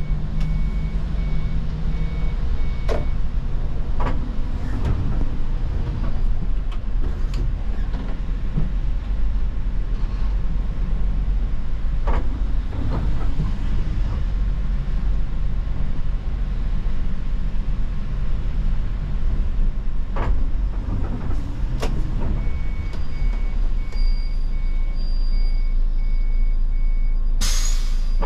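Inside the cab of an Iveco Crossway city bus on the move: a steady low engine drone with road noise and occasional knocks and rattles from the body. A repeating electronic beep sounds at the start and again over the last few seconds, and near the end a sharp burst of compressed-air hiss comes as the bus draws to a stop.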